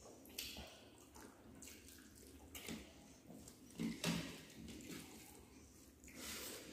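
Close-up eating sounds: wet, squelching smacks and chewing of mouthfuls of rice and fish curry, with fingers mashing and mixing rice and curry on steel plates. The sounds come in short scattered bursts, loudest about four seconds in.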